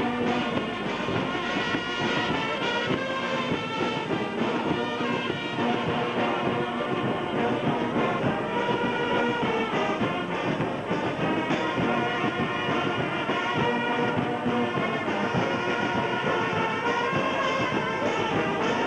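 Brass instruments playing music together, a full, steady band sound.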